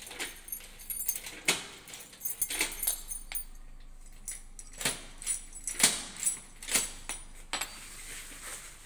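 Steel security door's multi-bolt lock and lever handle being worked: an irregular series of sharp metallic clicks, clacks and jingling as the handle is turned and the locking bars move. The loudest clack comes a little after the middle.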